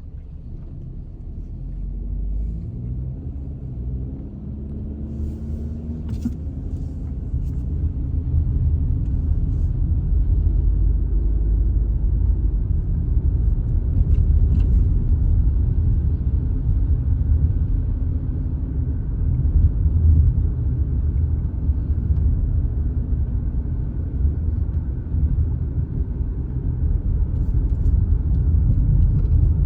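Car driving, a steady low road rumble with an engine note that rises over the first several seconds as it picks up speed.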